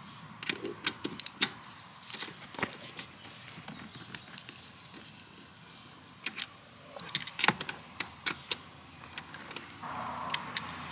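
Ratchet wrench clicking in short runs, with metallic clinks of the socket and tool, as the oil drain plug of a small generator engine is loosened for an oil change.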